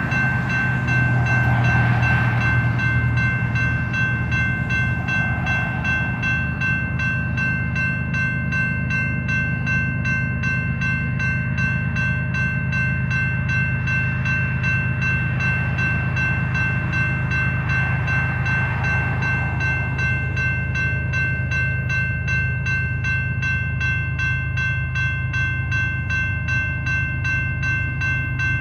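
Long BNSF freight train of empty intermodal cars rolling past, a steady low rumble of wheels on rail with steady high-pitched tones ringing over it.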